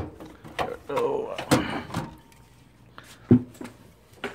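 Rummaging through a cluttered storage drawer: items knocking and clattering, with one sharp knock about three seconds in.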